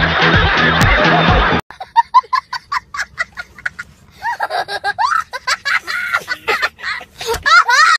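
Music with a steady bass beat that cuts off abruptly about a second and a half in, followed by a young child laughing hard in rapid high-pitched bursts.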